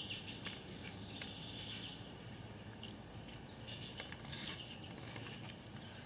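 Faint background noise with a steady low hum and scattered soft clicks.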